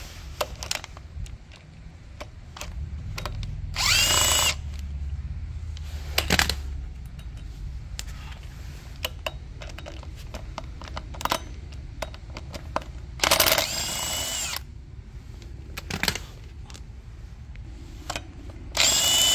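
Cordless power tool spinning a 13mm socket in several short bursts, its motor whine rising in pitch each time it speeds up, with clicks of the socket on the bolts between runs. It is undoing the bolts of the front plate on an M273 hydraulic suspension pump pulley.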